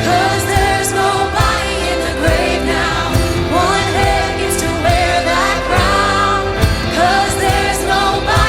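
Worship music: a sung melody, with other voices joining, over a band with sustained chords and a steady drum beat.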